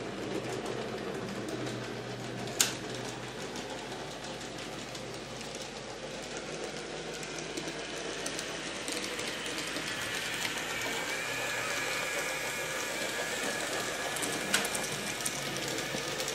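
Model trains running on a layout: a steady whirring rattle of small electric motors and wheels on track, with a thin motor whine joining about ten seconds in. Two sharp clicks, one a few seconds in and one near the end.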